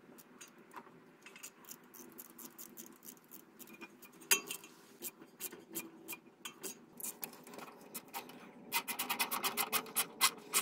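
A quarter-inch-drive ratchet with a 5/16-inch socket on an extension tightens the worm-gear hose clamp on a lower radiator hose. Scattered clicks and metal scraping give way to a fast run of ratchet clicks near the end.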